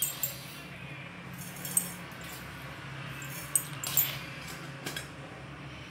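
Scattered light clinks and taps at a steel mixing bowl as sugar is sprinkled onto chopped vegetables, over a low steady hum.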